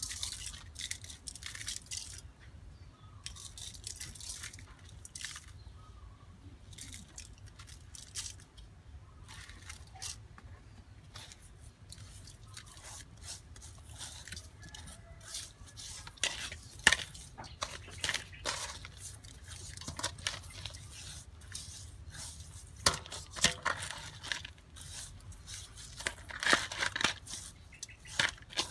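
Hands rubbing coarse salt over whole fish in an aluminium bowl: irregular gritty scraping and crunching of salt grains against scales and the metal bowl, busier and louder in the second half.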